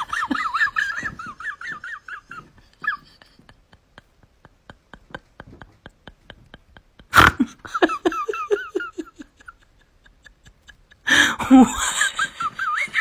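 High-pitched laughing and giggling in three bouts: at the start, again about seven seconds in after a sudden loud burst, and near the end. Between the bouts there is a run of faint, quick, regular clicks.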